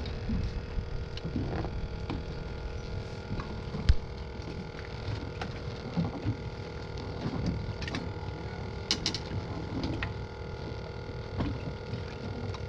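A steady mechanical hum over a low rumble, with scattered knocks and clicks; the loudest knock comes about four seconds in.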